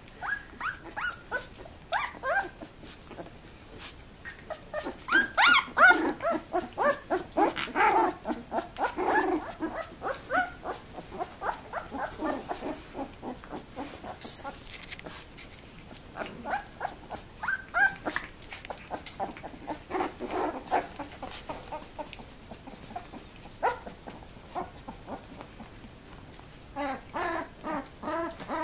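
A litter of two-week-old Labrador Retriever puppies whimpering and squeaking as they tussle, in quick runs of short high calls that come thickest about a fifth of the way in, again past the middle, and near the end.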